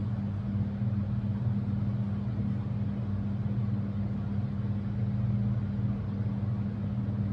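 Steady low hum that does not change.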